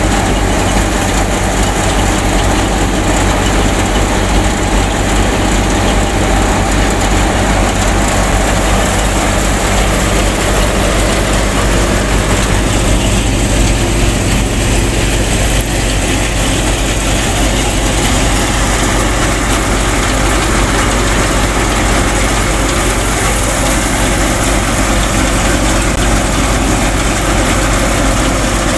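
Miniature model wheat thresher running steadily while threshing wheat: a continuous, even mechanical hum from its drive, belts and spinning drum.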